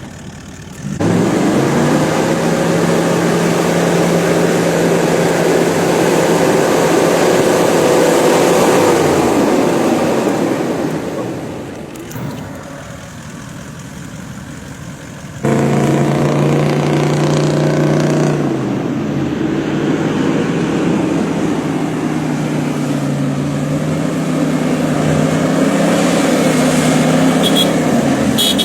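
Toyota LandCruiser's 4.5-litre V8 turbodiesel engine revving hard and held at high revs. The revs fall away after about nine seconds, then it comes back in suddenly a few seconds later and runs high again, shifting pitch briefly before steadying.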